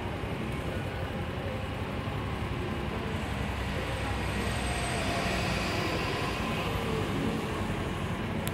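Steady engine rumble from a running motor vehicle, even throughout and slightly louder in the middle.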